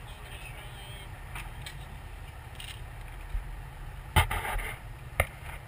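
Steady low rumble of a boat, with a few sharp clicks and knocks from pliers working at a hook caught in a shark's mouth, the loudest about four seconds in.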